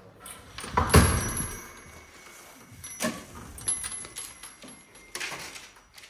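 Small brass bells hanging on a glass door jingle and ring as the door is pushed open, with a sharp knock about a second in and the ringing lingering for a couple of seconds. The bells are struck again midway, and a brief scuffing noise follows near the end.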